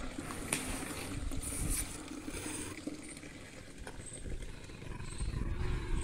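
Milk being poured from a brass pot into plastic milk cans, with a cow lowing faintly in the background in a drawn-out low call.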